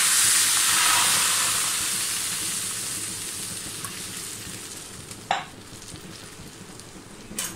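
Water poured into a hot frying pan of ghee-fried semolina, hissing and sizzling loudly as it hits the hot fat. The sizzle fades gradually as the water cools the pan, and there is a short knock about five seconds in.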